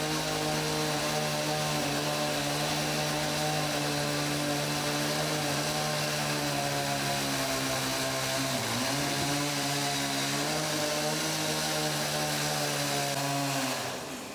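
A power tool's motor running at a steady speed. Its pitch dips briefly about nine seconds in, and it stops near the end.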